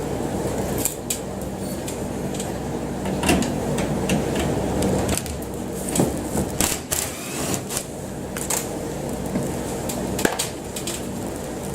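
A steady low machine hum with irregular clicks and knocks over it.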